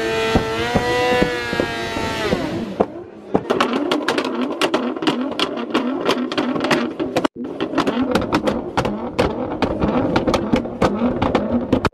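Sport motorcycle engine held at high revs during a burnout: a steady high-pitched note that wavers, climbs and cuts off about three seconds in. Then music with a quick clicking beat.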